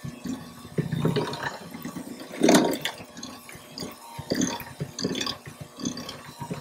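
Electric hand mixer beating cake batter in a glass bowl at a raised speed: the beaters churn the batter with irregular wet slapping and sloshing, loudest about two and a half seconds in.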